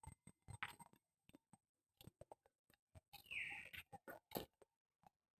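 Mostly near silence, broken by faint scattered taps of footsteps on a brick-paved path. One brief high call falls in pitch a little after three seconds in.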